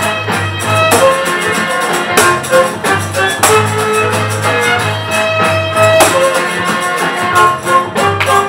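Music with a steady beat: drums, bass and guitar, with held melody notes over them.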